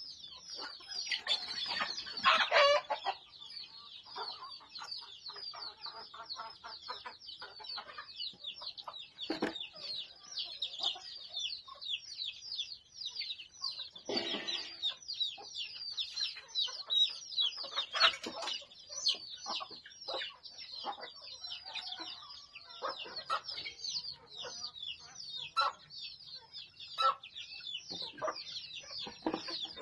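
A flock of backyard chickens clucking and calling over a constant chatter of high, short peeps. Louder, longer calls stand out about two seconds in and twice more later.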